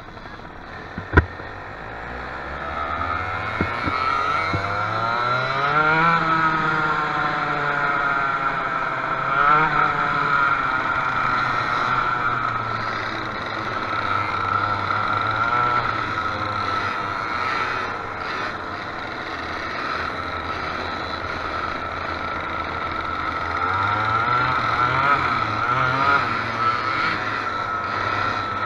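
Dirt kart engine heard from on board, revving up hard from low speed, its pitch climbing and falling as it accelerates and eases off through the corners of a dirt oval. A single sharp click about a second in.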